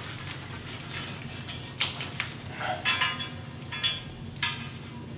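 Steel tank hatch cover plate knocking and clinking against its bolted flange as it is worked into place: a handful of sharp metallic clanks, starting about two seconds in, over a steady low hum.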